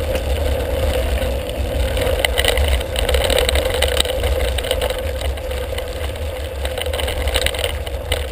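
Wind noise on a handlebar-mounted GoPro's microphone while a mountain bike rolls along a gravel dirt track, with scattered knocks and rattles of the bike over stones.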